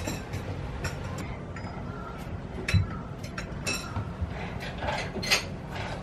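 Café clatter: china plates and cups clinking and knocking now and then as staff handle dishes behind the counter, some clinks ringing briefly, over a low steady hum.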